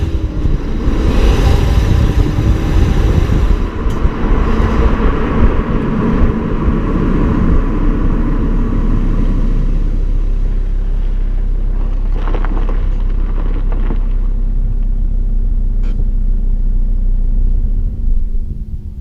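Volvo C70 D5's 2.4-litre five-cylinder turbodiesel running, loud and rough for the first several seconds, then settling into a steady drone. It drops off in level near the end.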